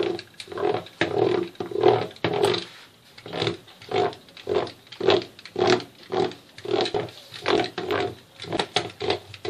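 Spiked pastry docker rolled back and forth over a sheet of puff pastry on a baking tray, pricking holes in it: a repeated rasping stroke about twice a second, with a short pause about three seconds in.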